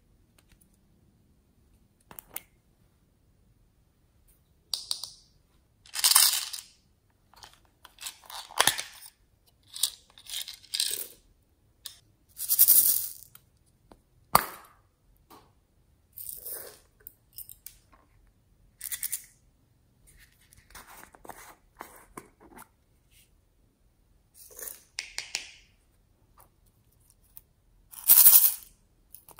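Small novelty plastic containers handled and opened by hand: a string of short crinkly, rattling bursts and clicks, loudest about six seconds in, around twelve seconds and just before the end, with one sharp click about halfway.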